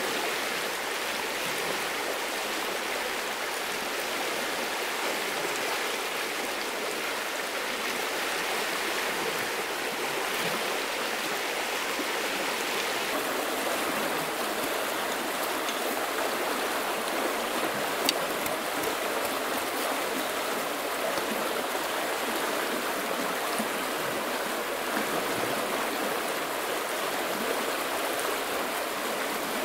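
A shallow, rocky stream running over stones in a steady rush of water. A single sharp click sounds a little past halfway.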